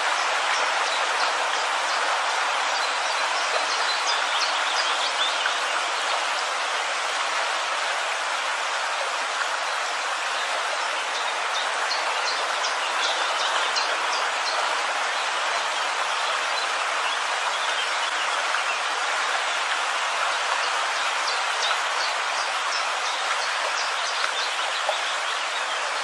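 Birds chirping in a few short bouts over a steady hiss of water.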